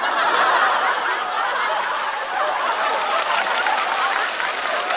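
Studio audience laughing and applauding, breaking out at once after a punchline and holding steady.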